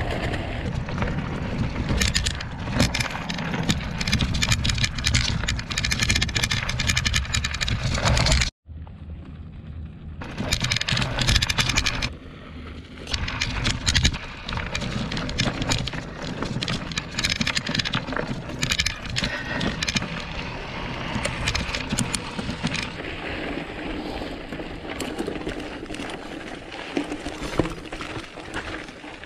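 Trek mountain bike ridden over a dirt and rocky trail: wind buffeting the microphone with a heavy rumble, tyres crunching on gravel, and the bike rattling and clattering over rocks. A brief dropout to silence about eight and a half seconds in.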